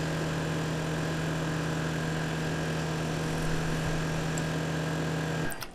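Tormach 8L CNC lathe running steadily with its spindle turning a brass bar, a constant hum under an even machine noise, cutting off abruptly near the end.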